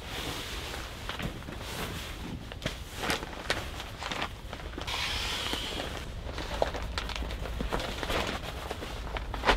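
Rustling of a down sleeping bag's nylon fabric as it is pulled out and spread over a camp cot, with scattered small knocks and scuffs and a longer rustle about five seconds in.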